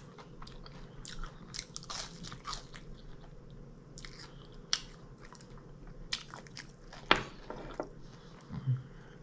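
A person chewing and biting crunchy food: irregular crisp crunches and clicks, with one sharper crunch about seven seconds in.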